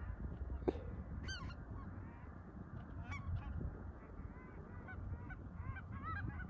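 A flock of geese, mostly Canada geese, calling as they fly low overhead, with scattered honks that come thicker near the end.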